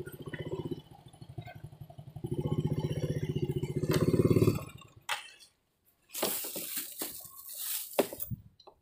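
Small motorcycle engine running with an even pulse, louder for about two seconds, then cutting off about five seconds in. Scattered rustling and knocks follow.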